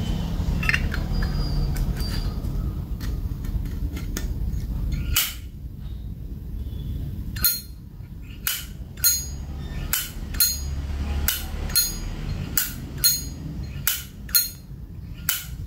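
A Zippo lighter's hinged metal lid clacked open and shut again and again: sharp metallic clacks, about one or two a second, from about five seconds in. Before them a low rumble runs and then stops.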